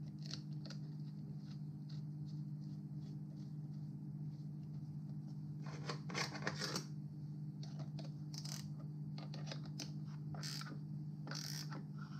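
Hand tools and metal parts being handled on a steel workbench: scattered light clicks and scrapes, with a cluster about six seconds in, over a steady low hum.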